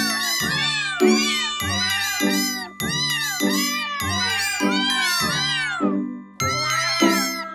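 Background music with a steady beat, mixed with many overlapping high-pitched kitten mews. Both break off briefly about six seconds in.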